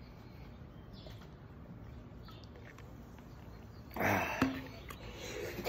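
Faint background with a few soft clicks while a man drinks from a plastic bottle, then a short, breathy exhale about four seconds in as he finishes the swig.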